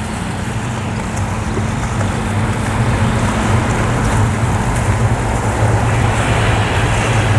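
Motor yacht passing close by under power: a steady low engine drone with the wash of water over it, growing slightly louder after the first couple of seconds.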